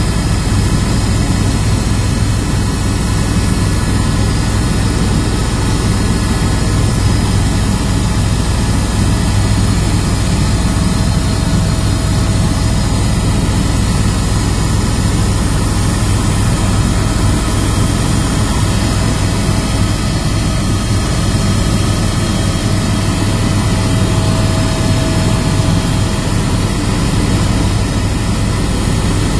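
Helicopter in flight heard from inside the cabin: a steady, heavy low drone of engine and rotor with an even hiss of air over the airframe.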